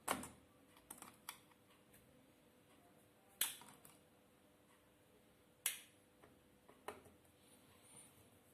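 Sharp, irregular clicks and taps of small plastic and metal parts and tools being handled while a laptop is taken apart: about six clicks, the loudest two near the middle.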